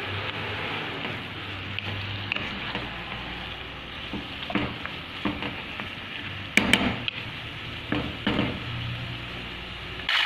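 Minced meat with onion, tomato and parsley sizzling in a frying pan while a utensil stirs it, with several scraping knocks against the pan in the middle, the loudest just past halfway. A steady low hum runs underneath.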